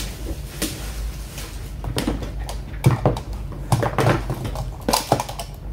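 Scattered clicks and knocks of hands handling a laptop and its newly fitted keyboard, at uneven intervals, over a steady low hum.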